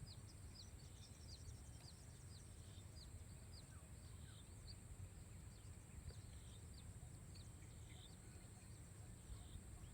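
Faint outdoor ambience: many short, high, falling bird chirps scattered throughout, over a low rumble.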